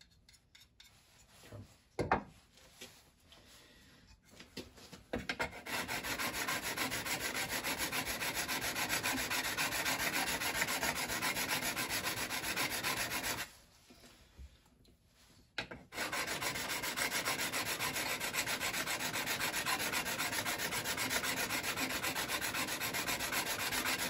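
Steel card scraper, held edge-down in a wooden block, rubbed rapidly back and forth on a diamond sharpening stone to flatten its edge and quickly remove metal: a steady, fast scraping rasp. It starts about five seconds in, stops for about two seconds past the middle, then resumes. A single sharp knock comes about two seconds in.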